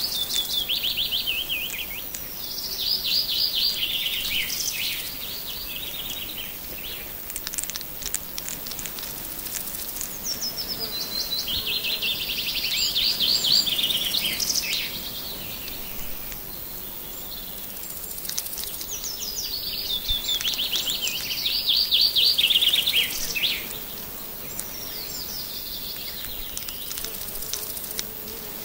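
A songbird singing a loud trilled phrase that falls in pitch, a few seconds long, repeated several times with pauses between. A few short, quiet clicks come between phrases.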